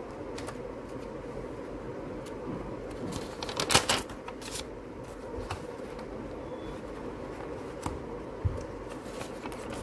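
Paper being handled on a desk: a spiral notepad's pages rustling, with small taps and clicks, and one louder rustle of paper about four seconds in as a sheet comes off the pad. All of it runs over a steady background hum.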